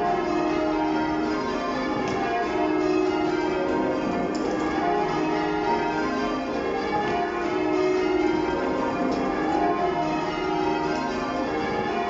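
Change ringing on a ring of twelve church bells cast in 2017, tenor 21 cwt in E♭, heard from the ringing chamber below: the bells strike one after another in a continuous, even sequence of overlapping rings.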